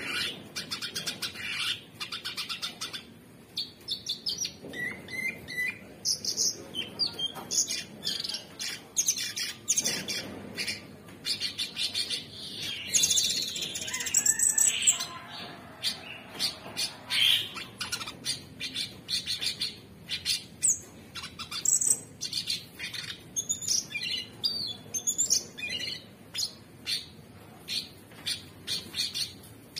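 Male orange-bellied leafbird singing a fast, continuous run of short chirps and whistles, loudest about halfway through.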